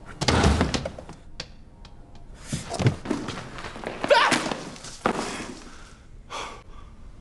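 A series of dull thuds and knocks, several separate impacts spread a second or so apart, the heaviest about three seconds in.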